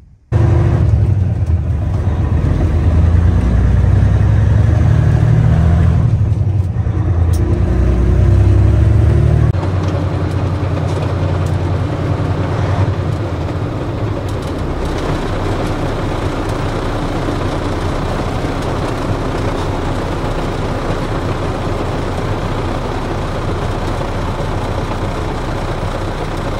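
A truck driving on a highway, heard from inside the cab: steady engine and road noise. For the first third or so it is a loud, deep rumble with shifting low tones, then it changes to an even rushing noise.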